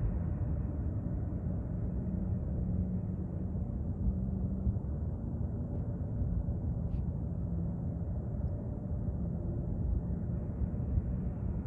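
Distant jet engines of an Airbus A330-300 airliner at low thrust as it taxis: a steady low rumble with a faint wavering hum.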